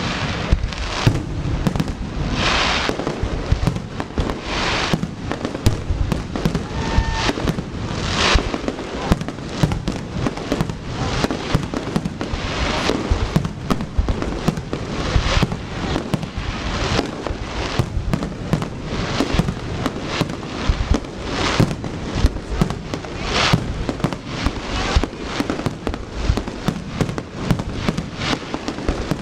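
Fireworks display going off without pause: a dense run of bangs and crackling, with louder booming bursts every second or two.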